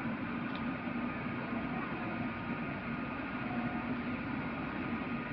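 Steady rushing background noise with a low hum in it, unchanging throughout, with no distinct calls or knocks.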